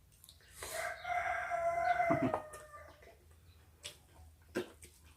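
A rooster crowing once: a single drawn-out call of about a second and a half, held on one pitch and then dropping off. A couple of short clicks follow later.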